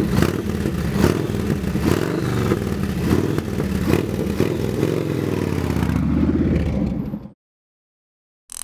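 Motorcycle engine revving, its pitch rising and falling, cutting off suddenly about seven seconds in. A short high-pitched sound follows near the end.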